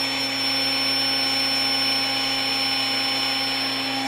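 Built-in electric air pump of a SoundAsleep Dream Series air mattress running steadily as it tops the mattress up to full inflation: an even rush of air with a steady motor hum and a high whine.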